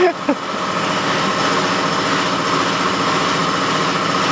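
Compressed-air cleaning equipment (a Tornador-type air gun and its air supply) running steadily, a loud motor-like drone with hiss over it.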